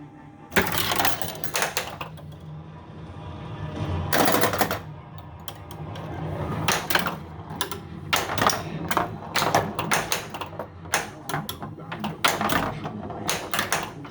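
Stern Guardians of the Galaxy Pro pinball machine in play: rapid, irregular mechanical clacks and knocks of flippers firing and the ball striking targets and bumpers, over a low steady tone from the machine.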